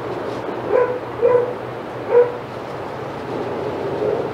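Dog barking: three short barks in the first two and a half seconds, the last one the loudest.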